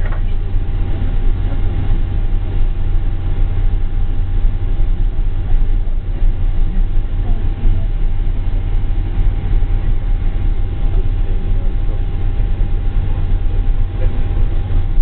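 Steady cabin noise inside a Boeing 747-400 on the ground with its engines running: a continuous low rumble with a thin steady whine over it.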